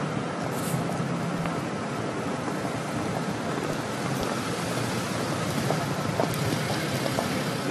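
Steady city street background noise, with a low hum of traffic in the first second and a half and a few faint ticks.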